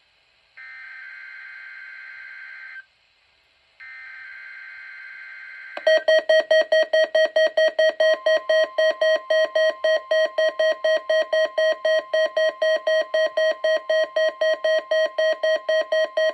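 NOAA Weather Radio SAME alert header: bursts of screeching digital data, with pauses about a second long between them. About six seconds in, a weather-alert receiver's alarm starts beeping rapidly, about four beeps a second. Around eight seconds in, the steady 1050 Hz NOAA warning alarm tone joins under it, marking the receiver's activation for the weekly test.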